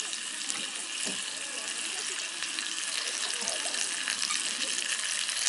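Food sizzling in a hot frying pan, a steady crackling hiss.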